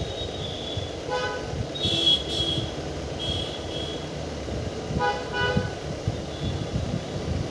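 A horn sounding two short toots, one about a second in and another about five seconds in, over a steady low rumble.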